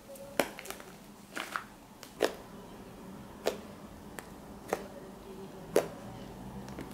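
Fluffy slime being squeezed and stretched by hand, making about six sharp pops at irregular intervals.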